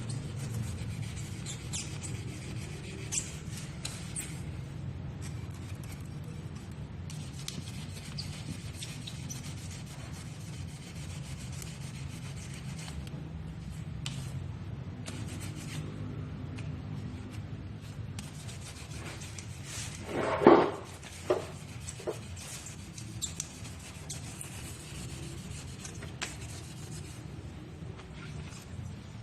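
Sanding on a powder-coated surface: steady rubbing over a continuous low hum. A loud sharp knock comes about twenty seconds in, followed by a couple of lighter clicks.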